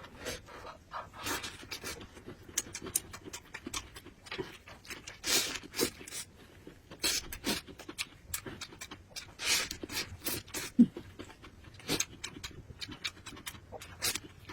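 Close-up eating sounds: a person chewing and smacking, with irregular wet clicks and a few longer noisy slurps or breaths.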